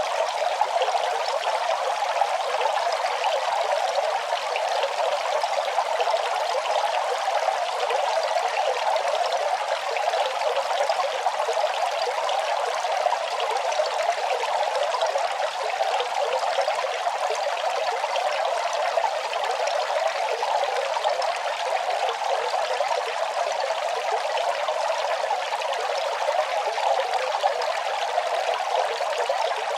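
Running water flowing steadily: an even rush with fine trickling detail and almost no low rumble, unchanging throughout.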